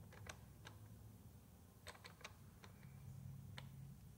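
Near silence with a scatter of faint, light clicks as a small metal casting seated in a machine vise is pressed and tapped with a thumb against the jaw and locating pin.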